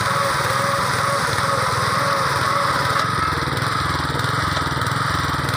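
Small engine of a KAMCO reaper running steadily, its tone shifting slightly about three seconds in.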